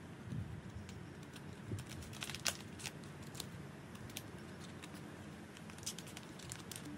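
Scattered sharp clicks and crackles of a thin plastic water bottle, used as a seedling pot, being handled and worked off a seedling's root ball, over a faint steady hiss.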